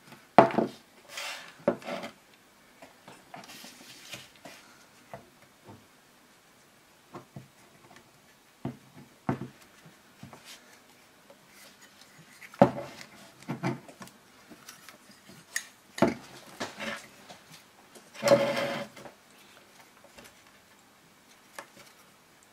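Metal carburettor bodies from a rack of Keihin CV carbs being handled and worked apart by hand: scattered clicks, knocks and rubbing, with a longer rub about eighteen seconds in.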